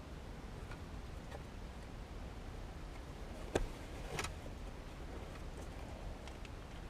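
Faint ticks and handling noises of a shift boot and its trim being screwed into a car's centre console, with a sharp click about three and a half seconds in and a smaller one just after four seconds, over a low steady hum.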